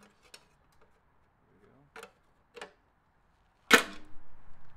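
A few light, isolated clicks and taps, then a sharper knock about three and a half seconds in: handling noise from the work.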